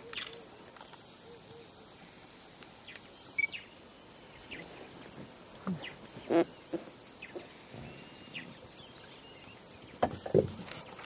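Insects buzzing steadily at a high pitch, with a scattered handful of short knocks and thumps: the loudest comes about six seconds in, and a few more cluster near the end.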